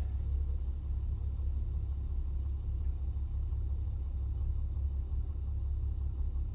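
Car idling while stopped in traffic, heard from inside the cabin as a steady low rumble.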